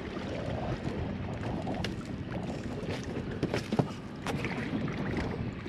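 Wind rumbling on the microphone outdoors, with a few scattered light clicks and knocks from handling.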